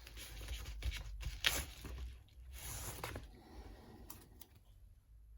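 Faint rustling and scratchy scraping of hands and small tools handling tablet parts on a workbench, in a few short irregular strokes that die down near the end.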